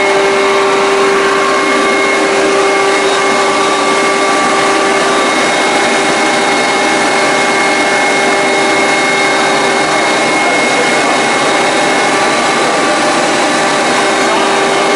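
Hydraulic pump test rig running steadily: a constant machine whine with a strong fixed tone over an even rush of noise.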